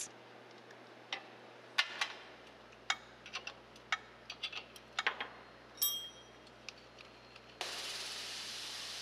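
Scattered metal clicks and clinks of a wrench working the stud nuts on a street sweeper's pickup broom core, with one ringing metallic clink about six seconds in. A steady hiss starts near the end.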